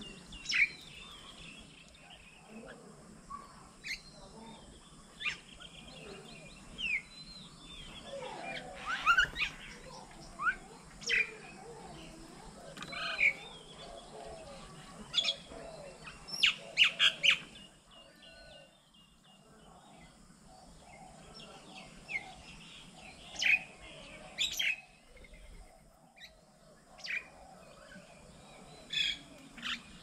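Several birds calling: scattered short chirps and sharp calls, loudest in a cluster about 9 seconds in and a quick run of calls around 16 to 17 seconds.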